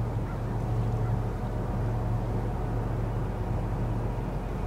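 Steady low drone of a boat's diesel engine, an even hum that holds without change, with a faint wash of noise above it.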